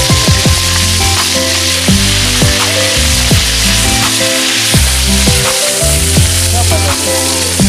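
Fish frying in hot oil in a wok over a wood fire, a steady sizzle, with a metal spatula stirring the pieces partway through. Background music with a beat runs underneath.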